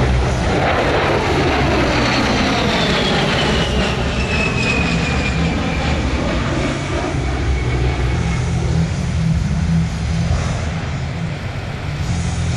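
An A-10C Thunderbolt II's twin General Electric TF34 turbofan engines passing overhead: a steady jet rumble with a high whine that falls in pitch as the aircraft goes by and moves away.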